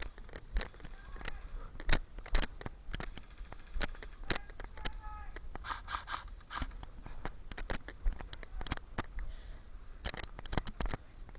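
Footsteps crunching and scraping over rough ground, with uneven sharp clicks about one or two a second. Faint distant voices now and then.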